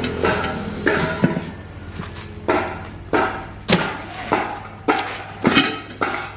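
Repeated sharp knocks on metal, about one or two a second, each with a short ring, as from hammer blows during repair work.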